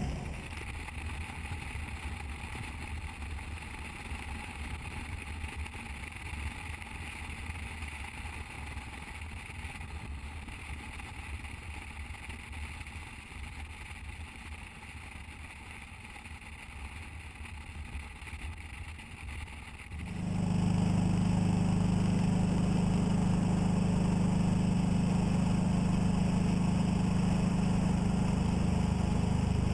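Motorcycle riding at highway speed, heard from a bike-mounted camera: a steady engine drone under road and wind noise. About twenty seconds in the sound turns louder, with a strong steady low engine hum.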